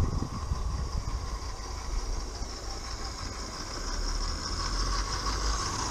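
16mm-scale live steam garden railway locomotive running along the track, its steam and running gear growing louder about halfway through as it comes closer.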